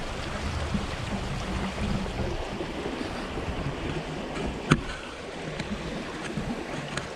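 Pond water rushing out through a freshly cut gap in the pond bank, a steady wash of running water, with one sharp click about two-thirds of the way through.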